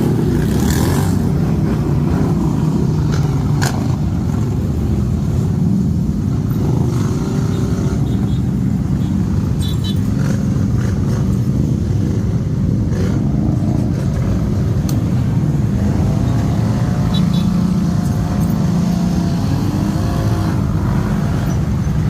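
ATV (quad bike) engine running steadily, its pitch shifting a little now and then as the throttle changes.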